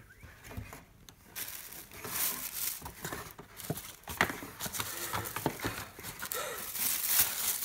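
Tissue paper rustling and crinkling as hands pull it open inside cardboard shoe boxes, with a few light knocks.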